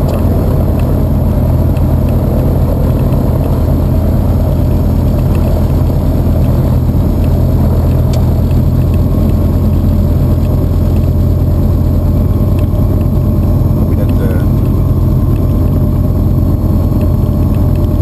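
Aquila A210's Rotax 912 four-cylinder piston engine and propeller at low idle while the plane rolls along the runway after landing, heard inside the cockpit as a steady, loud drone.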